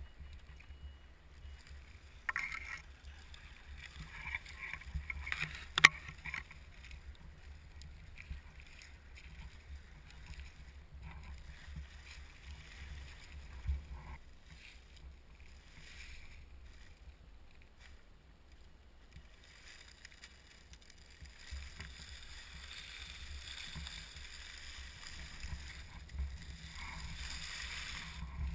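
Scale RC crawler truck driving through shallow water and over dry leaves: splashing and rustling from its tyres, with scattered sharp clicks, the loudest about six seconds in. A low rumble runs underneath, and a hiss builds over the last several seconds.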